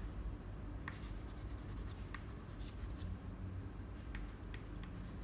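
Soft pastel stick scratching in short strokes on black pastel paper, with a few light ticks as it catches the paper, more often near the end, over a low steady hum.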